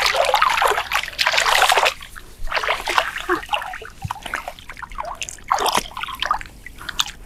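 Water splashing and sloshing as a person wades and gropes with her hands in a shallow pond. The splashing is loudest over the first two seconds, then breaks into shorter, smaller splashes and drips.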